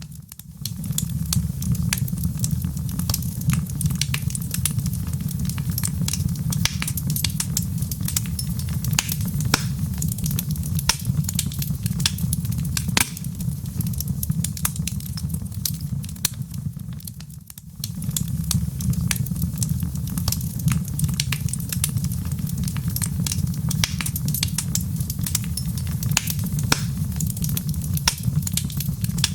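Wood fire in a fireplace crackling, with frequent sharp pops and snaps over a steady low rumble of the burning. The sound briefly dips away twice, just after the start and about 17 seconds in.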